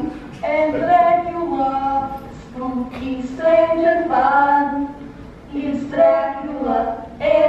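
A voice singing a melody with long held notes, in phrases of about two seconds with short breaks between them, played back over a loudspeaker.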